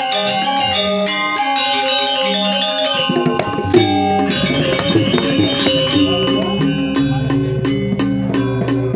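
Balinese gamelan playing: struck metal keys and gongs ringing in an interlocking pattern over drums, with a stretch of ceng-ceng cymbal clashing from about four to six seconds in.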